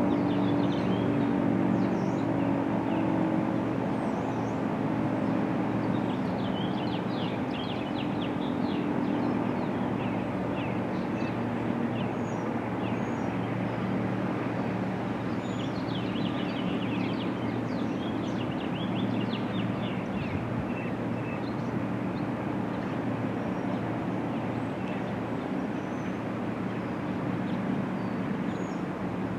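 Outdoor neighbourhood ambience: a steady background hum with a few low, steady tones that fade over the first several seconds, and birds chirping throughout.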